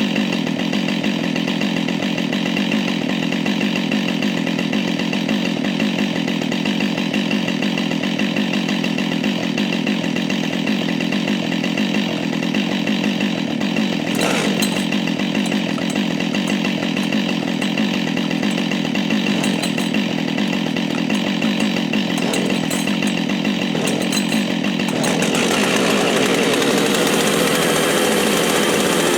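Two-stroke gasoline chainsaw running under load, cutting through wood. Near the end the engine note changes and gets a little louder.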